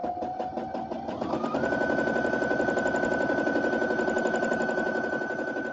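Brother BQ950 sewing machine stitching during free-motion quilting, its needle going up and down in rapid, even strokes. The motor's whine climbs over about the first second and a half, then holds one steady pitch at the speed set on the speed-control slider.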